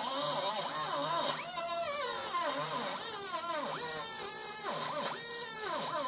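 Handheld air tool cutting into the sheet steel of a 1955 Chevy pickup's rear cab corner to take out the old panel's welds. Its high whine sags and picks up again every second or so as it bites into the metal, over a harsh hiss.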